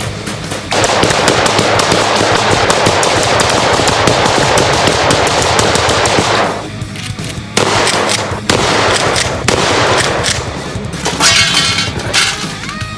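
Rapid automatic gunfire in long bursts, broken by a couple of short pauses partway through, with music underneath.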